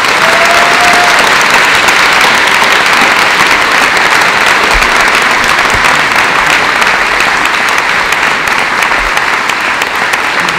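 Audience applause: steady, dense clapping from a large crowd in a hall, with a short whistle at the start.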